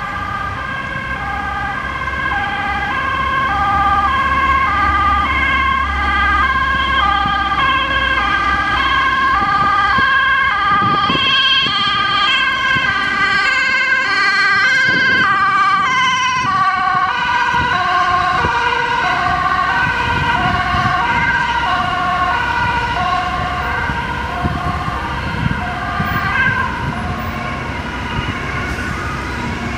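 Two-tone emergency siren of a Rijkswaterstaat road inspector vehicle, alternating between two notes about once a second and loudest midway as it passes, over the hum of motorway traffic.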